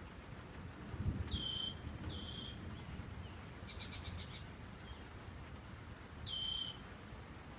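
Birds calling: a short clear note given three times and a quick run of about five chips in the middle, over a low steady rumble that swells about a second in.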